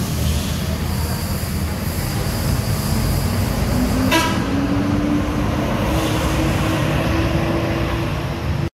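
Coach bus engine running as the bus pulls past in traffic, with a short horn toot about four seconds in. A low hum climbs slowly in pitch through the second half as it moves off.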